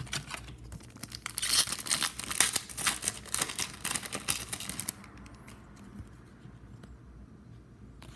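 Foil wrapper of a hockey card pack being torn open and crinkled, a dense crackling from about a second in until about five seconds in. After that it falls to faint handling.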